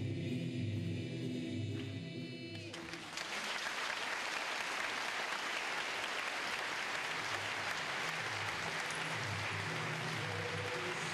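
A choir of mixed voices holds a final sung chord that ends about three seconds in, and audience applause takes over and runs on steadily. Near the end, music with sustained low notes comes back in under the clapping.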